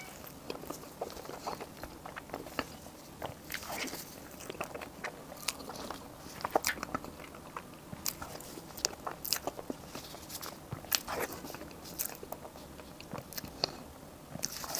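Eating sounds from a mouthful of Basque cheesecake: chewing and biting with many irregular sharp mouth clicks.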